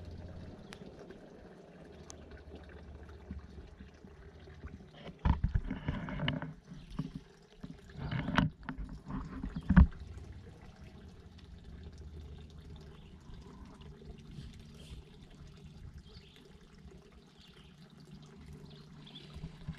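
Pond water splashing and trickling, with a cluster of louder splashes between about five and ten seconds in, the sharpest near the ten-second mark.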